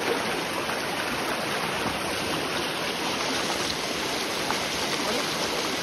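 Stream water running steadily over rocks.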